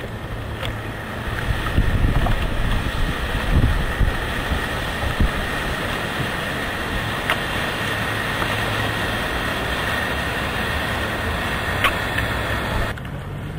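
Wind buffeting the microphone in gusts over a steady wash of surf and a low, even hum. The hiss drops away suddenly near the end.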